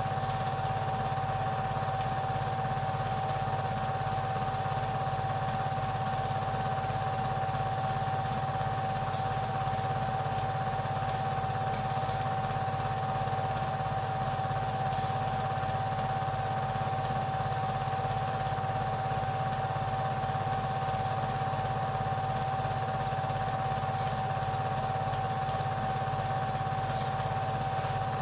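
Super 8 film projector running: a steady mechanical hum with a constant whine and a fast, even clatter from the film drive.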